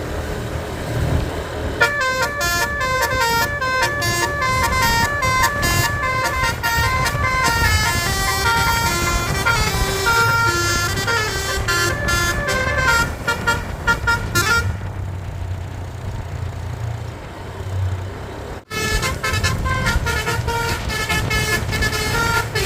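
Basuri telolet bus horn, a multi-tone horn, playing a fast melody of short stepped notes over the bus's running engine. The melody starts about two seconds in and stops around fourteen seconds, leaving the engine rumble, and the horn plays again near the end.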